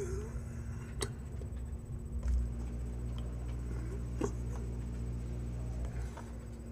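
Soft rustling and light taps of hands and clothing during sign language, with sharper taps about a second in and just after four seconds, over a steady low hum.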